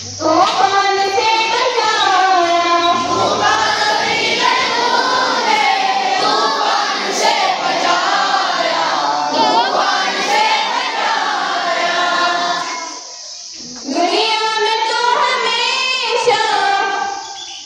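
A chorus of schoolchildren singing a school prayer together, with a short break between lines about thirteen seconds in.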